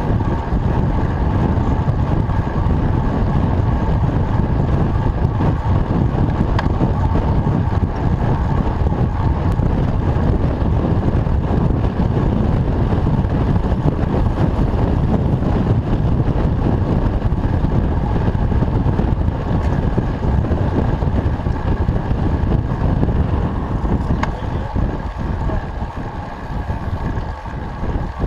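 Steady wind noise buffeting the microphone of a camera on a moving road bicycle, heaviest in the low end and easing a little near the end.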